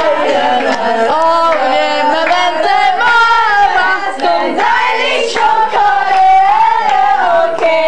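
A small group of people singing a birthday song together in unison, with some hand clapping.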